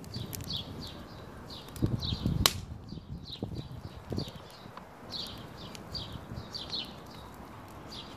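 A small bird chirping over and over, short falling chirps about twice a second. A few dull knocks and one sharp click about two and a half seconds in.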